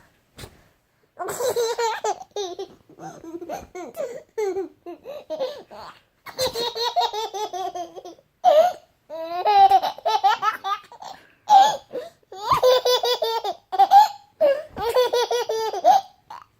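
A baby laughing in repeated bursts of belly laughter, set off by a sneeze.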